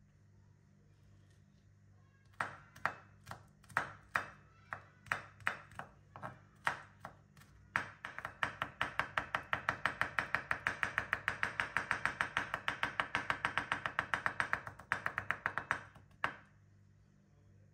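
Chef's knife chopping garlic cloves on a wooden cutting board: separate cuts a few times a second starting about two seconds in, then rapid, even chopping at about seven strokes a second from about eight seconds in, mincing the garlic finely, ending with a few last cuts.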